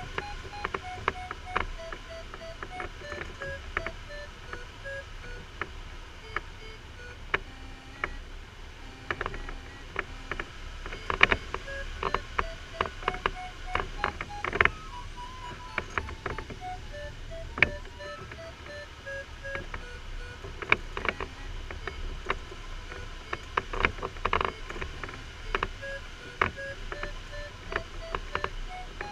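Glider's audio variometer beeping in short repeated tones whose pitch steps up and down as the climb rate changes, the sound of the glider climbing while circling. Under it is a steady low rush of airflow, with sharp cockpit knocks and rattles throughout.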